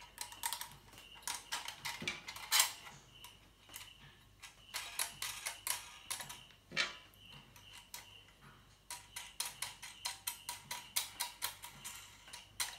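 Light metallic clicks and taps from a metal mounting clamp being fitted by hand onto the aluminium boom of a TV antenna. They come irregularly, in quick runs, with a few sharper knocks among them.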